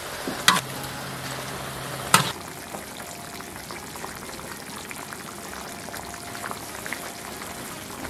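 Spicy beef hot-pot broth boiling hard in a wide pot: a steady bubbling hiss. Two sharp clicks come in the first two seconds or so.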